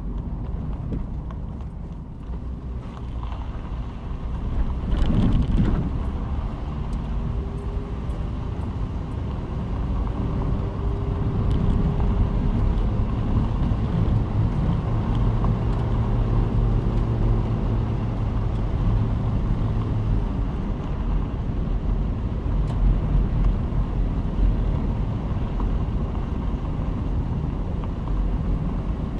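Car driving on the road: steady engine and tyre rumble, with a brief louder rush about five seconds in.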